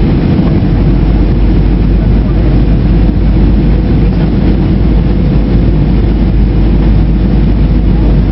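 Jet airliner cabin noise: the steady low rush of engines and airflow heard from a window seat, with a faint steady hum over it.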